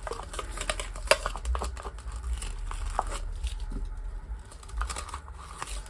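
A scraper working resin out of the ribs of a mixing cup: irregular scraping and clicking, with one sharp click about a second in.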